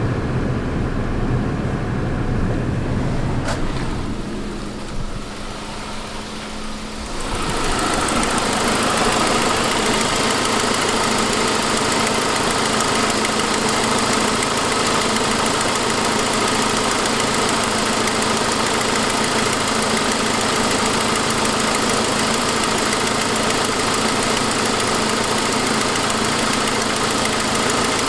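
2006 Saab 9-5's turbocharged engine idling with an exhaust-leak noise, caused by a broken forwardmost exhaust manifold stud. About seven seconds in the sound jumps suddenly louder and brighter, then holds steady.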